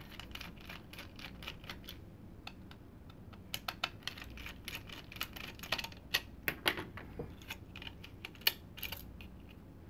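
Light, irregular clicks and ticks of a small screwdriver working at the screws on an LED board's aluminium backing plate and of the plastic lamp base being handled. The clicks come thicker and sharper through the second half.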